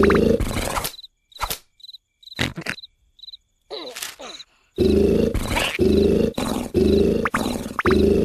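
Cartoon character snoring in loud, rapidly repeated snores, broken by a pause of a few seconds in which a cricket chirps and a few clicks sound.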